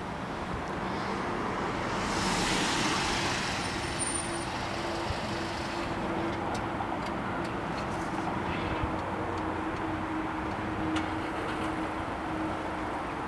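A car drives up and comes to a stop close by: engine and tyre noise swell about two seconds in and ease off by about six seconds. A steady hum then continues.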